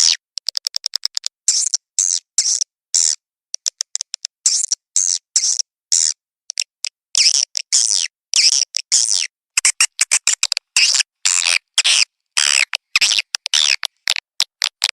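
Edible-nest swiftlet lure call recording: a quick series of short, high, sharp chirps, broken up by rapid trains of clicks, with brief gaps between bursts. The call is played to attract swiftlets to nest in a swiftlet house.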